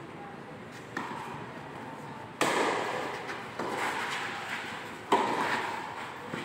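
Tennis rally: about four sharp racket strikes and ball bounces, roughly a second to a second and a half apart, the loudest about two and a half and five seconds in, each ringing on in the echo of a large covered tennis hall.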